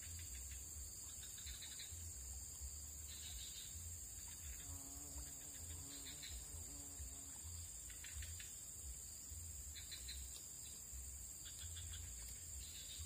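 Insects droning steadily at a high pitch, with shorter bursts of chirping that recur every second or two.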